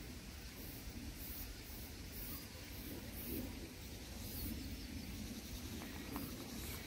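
Summer outdoor ambience: a very high chirping that pulses about twice a second, a steady low rumble underneath, and a faint bird chirp about halfway through.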